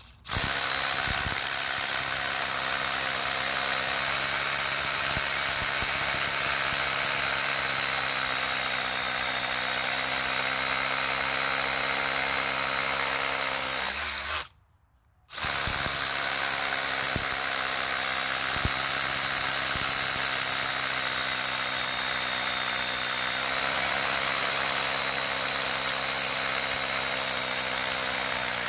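Worcraft CRH-S20LiT 20V cordless rotary hammer drilling into concrete, running steadily. It stops for about a second roughly halfway through, then starts again.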